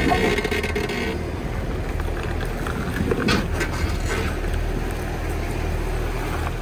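Jeep Wrangler engine running low and steady as it crawls slowly down a sandstone ledge, with a few short scrapes about three seconds in.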